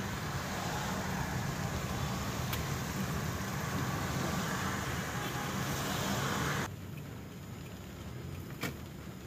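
Inside a moving car in rain: a steady hiss of rain and wet road over a low engine and road hum. About two-thirds of the way through the hiss drops off suddenly, leaving mostly the low hum, and a single sharp click follows shortly after.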